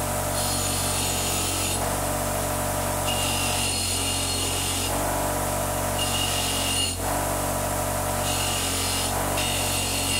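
A 3/4 HP 8-inch bench buffer runs steadily with a constant motor hum while an aluminium part is pressed against its spinning abrasive wheel in about five short passes. Each pass adds a high, rasping whine of metal being sanded smooth.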